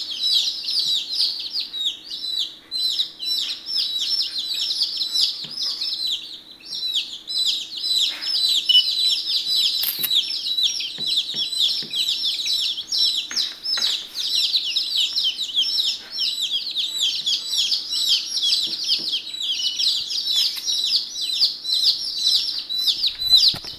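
A brood of day-old chicks peeping without pause, many high chirps overlapping one another, with a few soft taps in the middle and a faint steady hum underneath.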